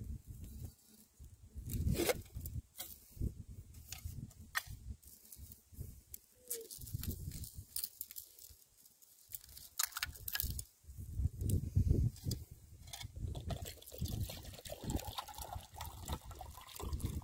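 Water trickling and pouring from a metal water bottle into an aluminium canteen cup near the end, among scattered low rumbles and light knocks from handling the gear.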